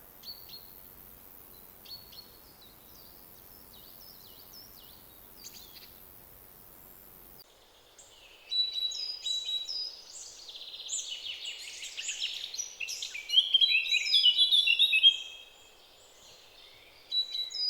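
Songbirds singing: faint scattered chirps at first, then about halfway several birds sing louder, with quick chirps and rapid trills that build to a dense burst before a short pause and start again near the end.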